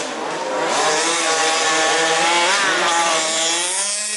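Petrol two-stroke engines of 1/5-scale off-road RC cars racing, their buzzing rising and falling in pitch as the throttles open and close.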